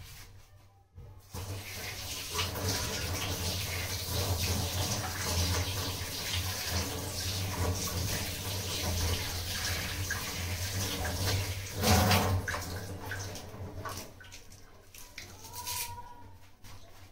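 Kitchen tap running, water splashing steadily into the sink, with a brief louder splash about twelve seconds in; the flow tapers off over the last few seconds.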